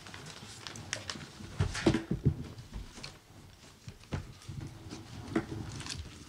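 Scattered rustles, taps and small knocks of people handling and leafing through meeting papers at a table, picked up by the table microphones.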